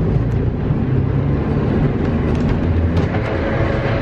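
Manx Electric Railway tram, a wooden 1899 car, running along its rails as heard from inside the saloon: a steady low rumble with a few sharp clicks.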